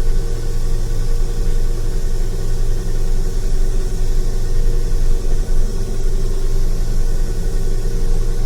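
Harvest machinery's diesel engine running at a steady speed, a constant loud drone.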